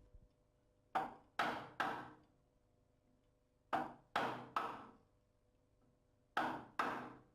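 A wooden mallet striking a chisel, cutting into the timber of a door edge to chop out a hinge recess: eight sharp knocks in three quick groups of three, three and two.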